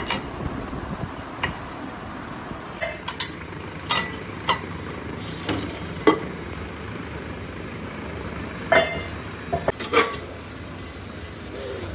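Metal clanks and knocks, some ringing briefly, as a machined cast-iron truck brake drum is handled and lifted off a lathe's four-jaw chuck. A steady low machine hum runs underneath.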